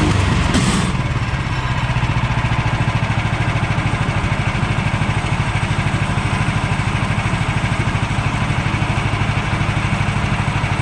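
Woodland Mills HM130 portable bandsaw mill's gas engine running. About a second in, the sound turns into a rapid, even pulsing that is the sign of trouble: the bandsaw blade has slipped off the band wheels, which the owner puts down to too much lubrication.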